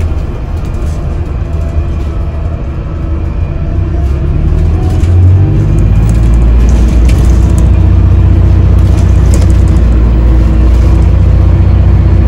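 Alexander Dennis Enviro400H MMC hybrid double-decker bus heard from the lower deck: a deep engine and drivetrain rumble that builds over a couple of seconds about a third of the way in, then runs steady and loud, with light clicks and rattles now and then.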